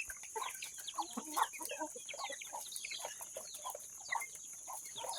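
Chickens clucking, many short overlapping calls throughout, over a steady high-pitched hiss.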